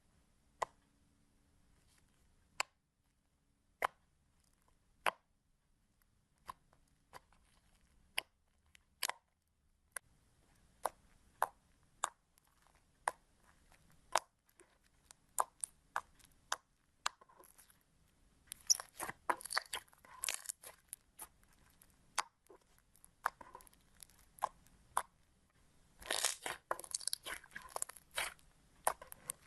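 Slime being pressed and squeezed by hand. It makes sharp, separate pops about once a second at first, then two bursts of dense crackling and crunching in the second half.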